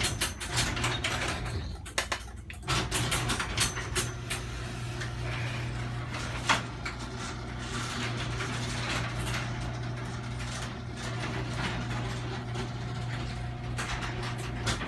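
Liftmaster 1/3 hp chain-drive garage door opener closing the door: a steady motor hum with rattling and clicking from the chain and door, breaking off briefly about two seconds in, then running steadily until it stops near the end.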